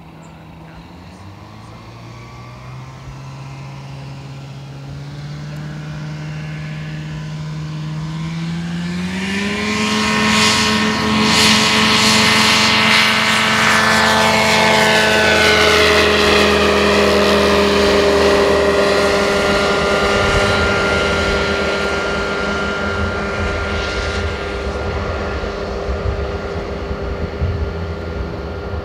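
Rotax 447 two-stroke engine and propeller of a MiniMax 1600R ultralight at takeoff power. The note climbs in pitch and loudness over the first ten seconds as the plane rolls and lifts off toward the camera. It is loudest for several seconds as the plane passes, dips slightly in pitch, then slowly fades as the plane climbs away.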